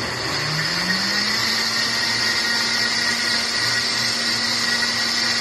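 KitchenAid K400 blender running, its motor rising in pitch over the first second as it spins up and then holding steady, blending pecans into a thick raspberry and ice cream shake.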